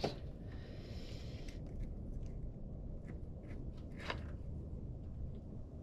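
Light clicks and scrapes of small metal parts being handled as a front wheel hub is taken apart, with one sharp click at the start and another about four seconds in.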